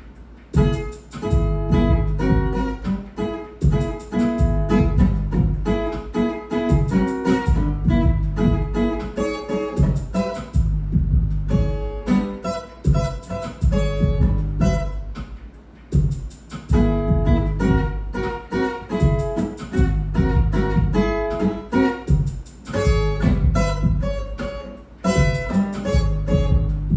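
Steel-string acoustic guitar being played, picking single notes and chords in short phrases with brief pauses between them.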